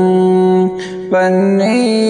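Male voice singing a Kashmiri naat: a long held note, a short break just under a second in, then a new phrase moving up and down in small steps of pitch.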